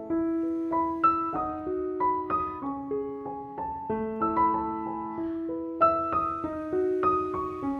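Background piano music: a steady melody of struck notes, several a second, over lower held notes.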